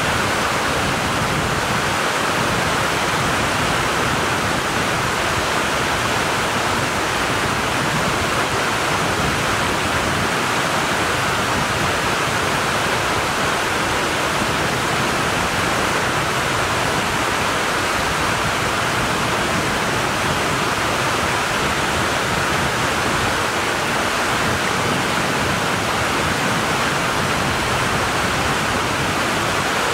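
Rushing mountain stream tumbling over rocks and small cascades: a steady, even rush of water.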